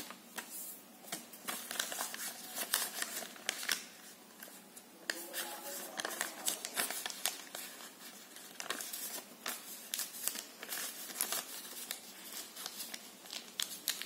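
A sheet of origami paper being folded and creased by hand, with irregular crinkles and rustles of the paper.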